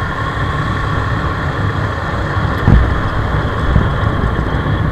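Motorcycle riding along, with steady engine and road rumble and a brief thump a little past halfway through.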